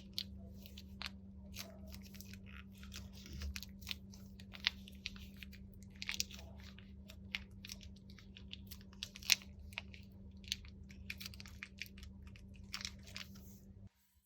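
Crunchy slime being squished and worked by hand, giving irregular crisp crackles and pops, over a steady low hum that cuts off suddenly near the end.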